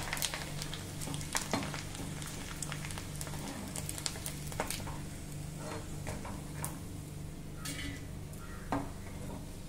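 Rice-flour koozh vathal (fryums) sizzling in hot oil in a kadai, with scattered clicks and scrapes from a perforated steel skimmer stirring and lifting them out.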